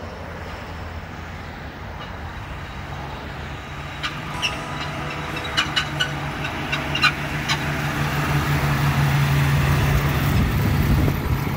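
A 1965 Ford Mustang's 289 V8 running as the car drives up and passes close by, growing steadily louder as it nears, with a few light ticks partway through.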